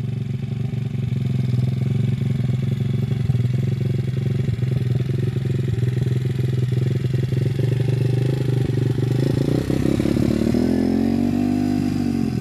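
The 170cc four-stroke single-cylinder engine of a Welsh Pit Bike idling steadily after a cold start. About ten seconds in it is given a brief rev, with the pitch rising and falling back to idle.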